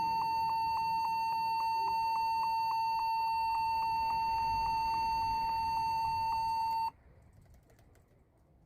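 Continuous high-pitched electronic beep from a computer, the keyboard-fault beeping the video sets out to fix, with faint regular ticks about four times a second. It cuts off suddenly about seven seconds in.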